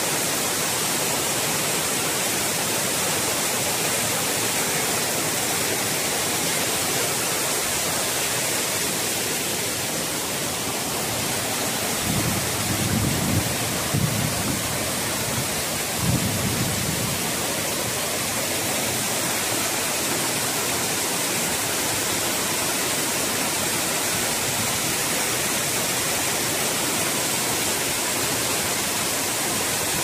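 Steady rush of Geta Falls' twin cascades plunging into a rocky pool, with the stream running over boulders. A few low thuds come partway through.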